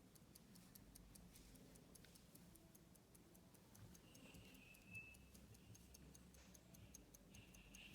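Faint, quick, even ticking of a running Swiss 17-jewel lever pocket watch movement, about five ticks a second.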